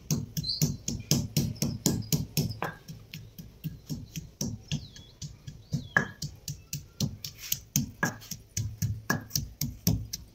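Wooden pestle pounding in a stone mortar: a rapid, fairly regular run of sharp knocks with dull thuds, about three or four strokes a second.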